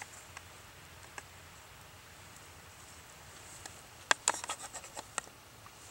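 Hand-carved wooden spatula tapping and scraping against a tin can frying pan while cutting fried eggs: a few faint ticks, then a quick cluster of sharp clicks about four seconds in.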